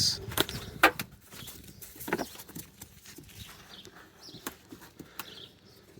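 A few sharp knocks and clicks, mostly in the first two seconds, from a car's rear light housing being handled and set back into place, then faint rustling.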